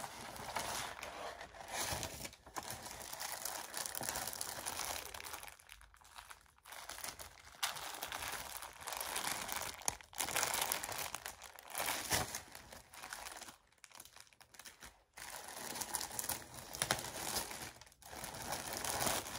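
Crinkling and rustling of a clear plastic garment bag being handled and opened, in irregular spells with short pauses.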